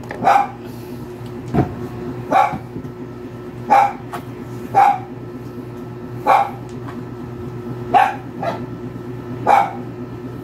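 A dog barking repeatedly, about seven single barks spaced a second or so apart, over a steady low hum. A single low thump comes about one and a half seconds in.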